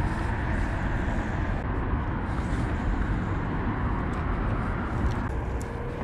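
Steady low outdoor rumble with no single sound standing out.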